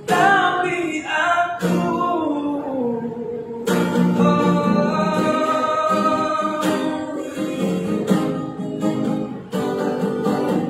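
A man singing, accompanying himself on a strummed acoustic guitar. His voice slides between notes and holds one long note near the middle.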